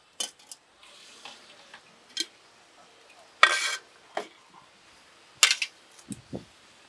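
Kitchenware clinking and clattering: utensils and dishes knocked together in a run of separate clinks, the loudest a ringing clatter about halfway through, with two dull knocks near the end.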